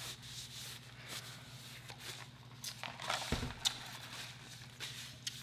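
Quiet eating sounds: scattered soft clicks and smacks of chewing, with one low thump about three seconds in, over a steady low hum.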